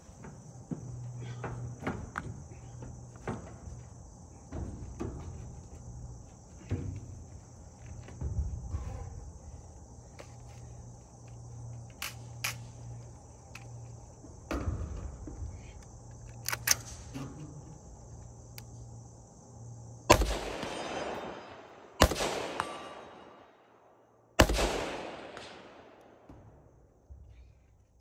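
Three rifle shots from a 5.56 mm Recce rifle, roughly two seconds apart in the last third, each followed by a long echoing tail. Before them come scattered light knocks and rustling, and insects buzz steadily throughout.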